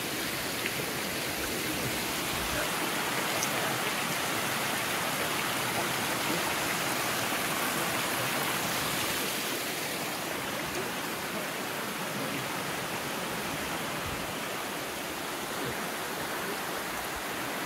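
Small stream cascading over boulders: a steady rushing of water, a little stronger in the middle.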